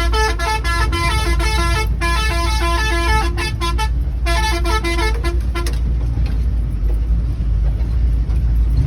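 A musical multi-tone vehicle horn playing a quick repeating tune of stepped notes, breaking off briefly twice and stopping about six seconds in, over a steady low rumble of engine and road noise that carries on alone.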